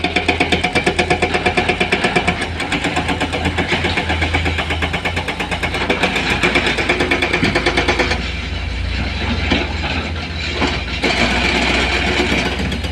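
Heavy diesel engine of the loading equipment running steadily with an even rhythmic pulse, which eases off about eight seconds in.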